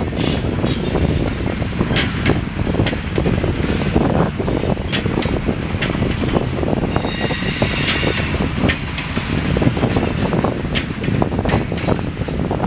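Boxcars of a freight train rolling past: a steady rumble of steel wheels on rail, with repeated clicks as the wheels cross rail joints. A high metallic wheel squeal rises about seven seconds in and fades after a second or so.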